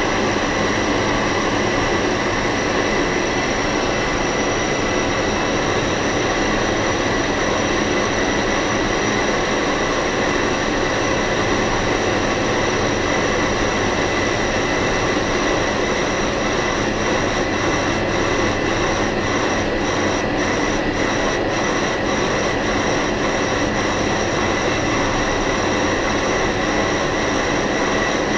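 Lathe boring out the inside of a vacuum compressor housing on a light finishing cut of about a tenth of a millimetre: steady machining noise with a constant high-pitched whine.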